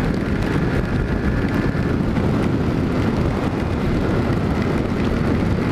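Steady rush of wind over a motorcycle rider's camera microphone at about 90–100 km/h, with the bike's running noise underneath.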